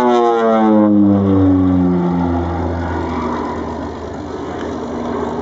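North American OV-10 Bronco's twin turboprops in a fly-by. The engine and propeller tone falls steadily in pitch over the first two seconds or so as the aircraft passes, then settles into a steady, lower drone.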